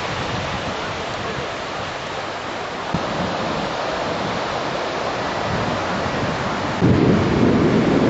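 Steady hiss of waves breaking and washing on a sandy shore, with wind buffeting the microphone in low rumbles from about seven seconds in.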